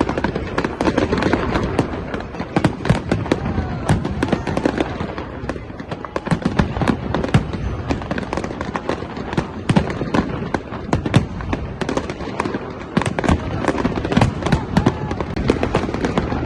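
Fireworks going off in a dense, unbroken barrage: many rapid, irregular cracks and bangs overlapping, with a crowd's voices beneath.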